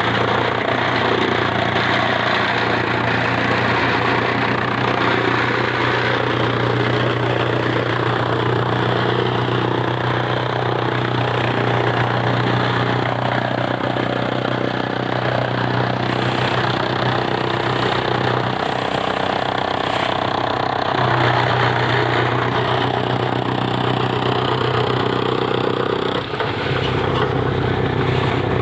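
A motor running steadily with a constant low hum, briefly dipping near the end.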